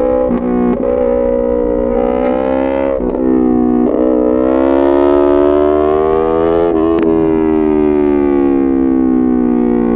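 2020 Yamaha MT-03's parallel-twin engine through an SC-Project full titanium exhaust, revving up under acceleration with brief breaks for gear changes about three and four seconds in. A sharp click comes about seven seconds in, then the engine note falls steadily as the bike slows.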